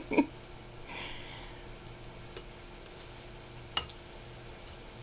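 A metal fork clicking against a ceramic bowl: a few light taps, the sharpest about three-quarters of the way through.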